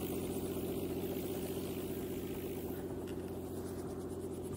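Helicopter running on the ground, a steady engine drone with a fast, regular pulsing beat.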